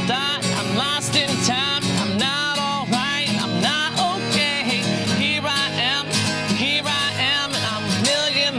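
A man singing in a gritty voice with long held, bending notes over a strummed Epiphone Hummingbird acoustic guitar, played live with steady chords.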